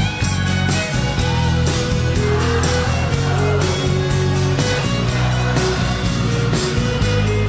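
Live rock band playing an instrumental break, a violin carrying the melody over a steady drum beat, bass and guitar.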